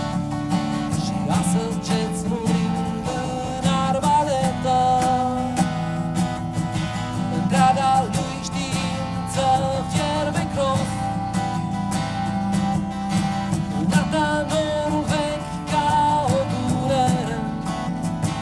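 Live acoustic folk music: acoustic guitar strumming steady chords, with a picked melody line over them, in an instrumental passage between sung verses.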